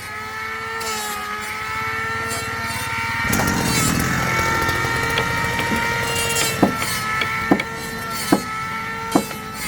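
Handheld electric power tool running with a steady motor whine, biting into wood with a rougher noise from about three seconds in. A few sharp knocks come near the end.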